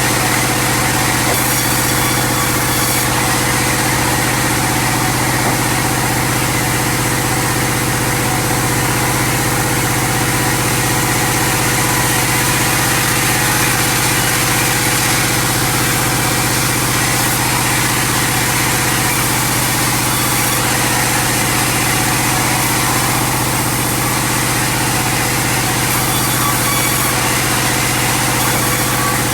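Sawmill engine running steadily, holding the same pitch and level throughout.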